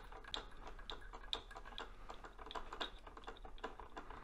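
Faint, light ticking, about two clicks a second, as tying thread is wrapped turn by turn around a hook shank held in a fly-tying vise.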